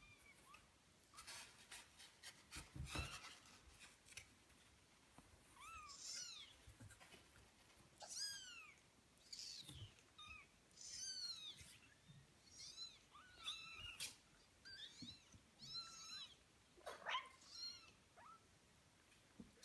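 18-day-old kittens mewing: a string of short, thin, high-pitched mews, several overlapping, with a few soft clicks in the first few seconds.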